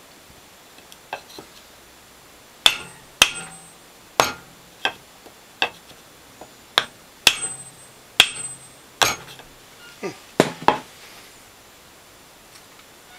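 A hammer knocking a wooden block against a CPU clamped in a small vise: about a dozen sharp, irregular strikes that stop about eleven seconds in. This is the vise-and-hammer way of knocking the heat spreader off an Intel Core i7-3770K to delid it.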